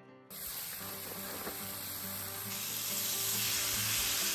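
Food sizzling and frying in a hot pan. It starts suddenly just after the start and gets louder about halfway through.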